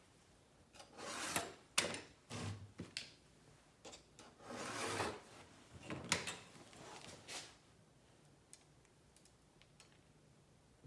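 Hand tools scraping and rubbing on a clay slab in a run of short strokes with a few sharp clicks, stopping about seven and a half seconds in.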